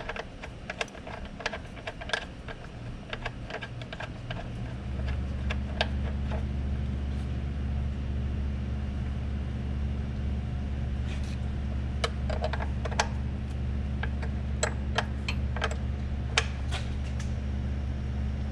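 Quick runs of small metallic clicks and taps from a hand tool as the oil drain plug is put back in and tightened. About five seconds in, a steady low machine hum starts and keeps on under the scattered clicks.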